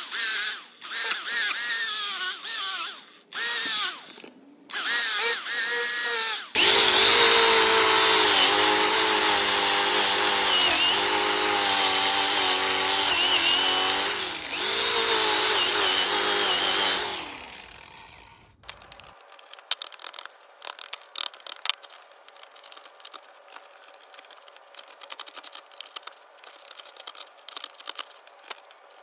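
DeWalt angle grinder with a disc working across a wood slab, its whine dipping and rising in pitch as it bites. It runs in short stretches with brief drops, then one longer, louder run. A little past halfway it stops, and quieter scraping and small clicks follow as rotten wood chips are picked and pried out by hand and chisel.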